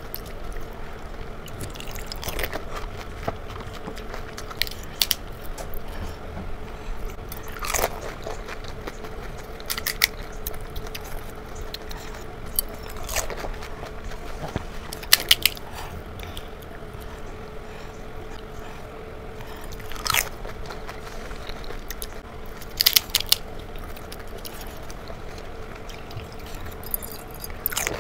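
Pani puri (golgappa) being eaten up close: crisp fried puri shells crunching between the teeth, with wet chewing in between. Sharp crunches come every two to three seconds.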